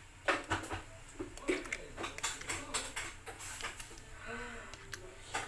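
White plastic spatula stirring a wet, milky mixture of sago pearls and gelatin cubes in a glass bowl. It makes irregular clicks and scrapes against the glass, with the liquid sloshing.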